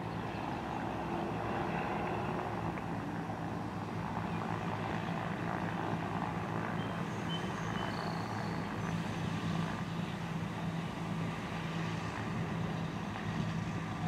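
Twin piston engines and propellers of a Piper PA-34 Seneca running steadily on its takeoff roll down the runway.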